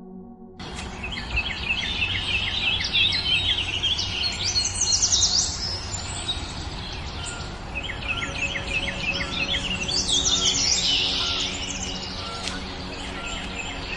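Birds chirping and calling, a busy run of quick high chirps and trills that starts about half a second in.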